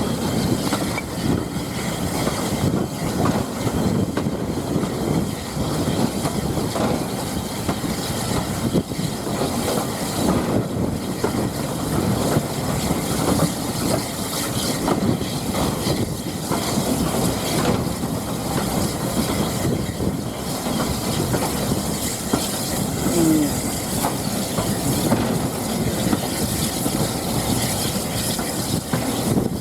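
Steam-hauled heritage train running along the line: a steady rumble and clatter of the carriage wheels on the track.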